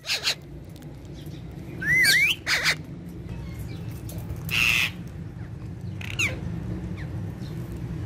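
Alexandrine parakeets calling: a short warbling whistled call about two seconds in, a harsh screech near five seconds, and a brief call about six seconds in, over a steady low hum.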